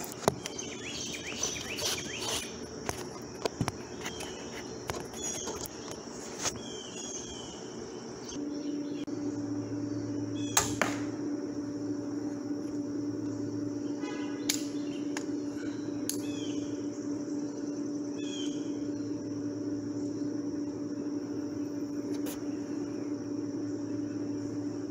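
Mini crossbow being shot: about five sharp snaps, spread several seconds apart, as light bolts are loosed at a target. Birds chirp throughout, and a steady low hum comes in about a third of the way through.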